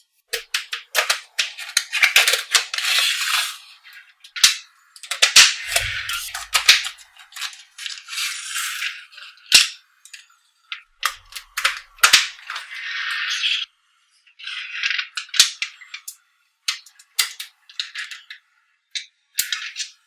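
Small magnetic balls clicking and rattling as layers of a slab built from them are split apart with a card and snapped back together: runs of sharp clicks and short rattles, broken by brief pauses.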